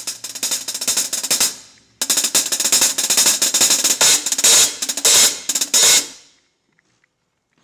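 A drum kit played fast, with cymbals loudest and drum hits beneath, in two stretches split by a brief break about two seconds in; the playing stops about six seconds in.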